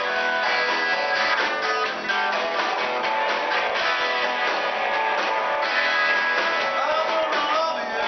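Live band playing an upbeat number with electric guitars, drums and upright bass, recorded thin with little low end.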